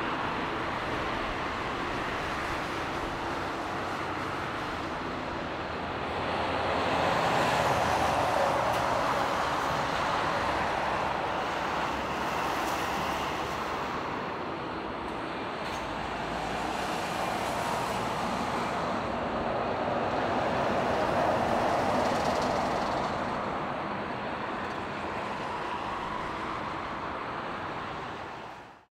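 Boeing 787-8 airliner's GEnx turbofan engines running at taxi power, a steady rushing jet noise that swells twice, about a quarter of the way in and again about two-thirds through, then fades out at the very end.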